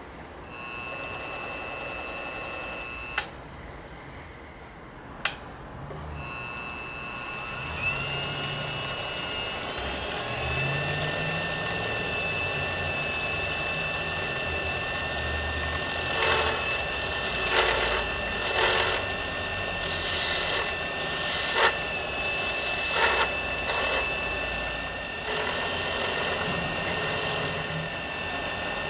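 Wood lathe motor whining as it spins a holly pen blank: it stops briefly with a couple of clicks, starts again and rises in pitch as it speeds up, then runs steadily. From about halfway, a carbide turning tool cuts the spinning holly in a series of short scraping passes.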